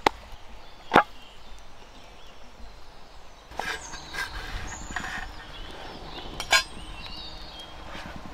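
Hands slapping and patting a disc of bajra (pearl millet) dough into a rotla, with a sharp slap about a second in. Then scattered soft taps and handling as the rotla is set on a clay griddle and pressed by hand, with one more sharp knock past the middle.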